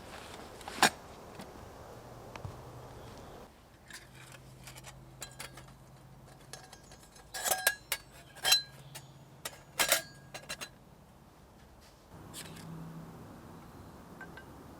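Metal camping cookware being handled while a brew is made: a clink about a second in, then a run of sharp metallic clinks and knocks with brief ringing in the middle.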